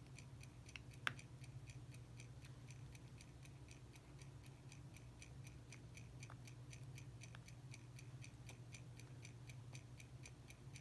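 Faint, fast, even ticking of a mechanical watch, about five or six ticks a second, over a low steady hum. A single sharp metal click about a second in, and a couple of fainter ones later, come from a small screwdriver working on the movement's bridge screws.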